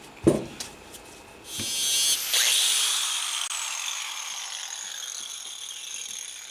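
Two knocks, then a DeWalt 4.5-inch angle grinder switched on briefly about a second and a half in. After that it winds down with a slowly falling whine that fades over the rest.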